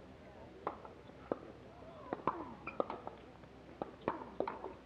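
Pickleball paddles popping against the plastic ball, a dozen or so sharp hits at irregular intervals, over faint background voices.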